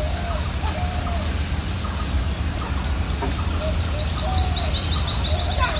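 A bird sings a fast trill of short, high, downward-sweeping notes, about six a second, starting about halfway through. Underneath is a low, steady rumble.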